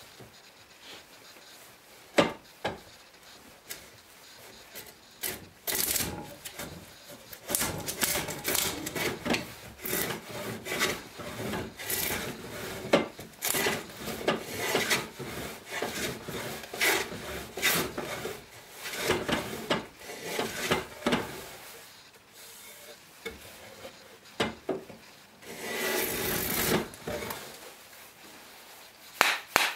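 Antique wooden plough plane cutting a groove along the edge of a board: its iron shaves the wood in a run of short strokes, with a gap near the end and then one longer stroke. A sharp knock about two seconds in.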